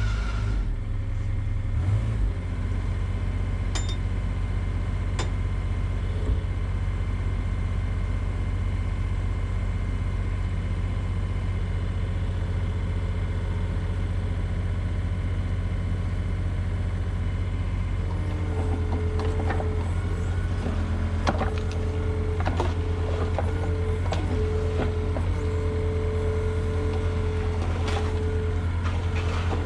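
Mini excavator diesel engine running steadily under load. About two-thirds of the way through, a steady higher whine joins it, with scattered short knocks and clanks.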